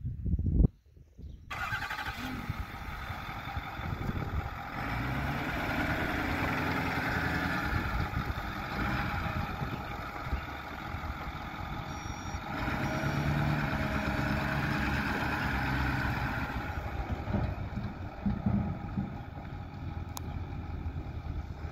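2008 Ford F450 truck's engine running as the truck drives, swelling and rising in pitch twice as it pulls. A brief loud knock comes just after the start, followed by a short pause before the engine sound.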